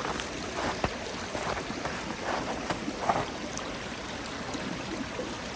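A small stream running steadily, a continuous watery rush, with a few brief louder sounds over the first three seconds.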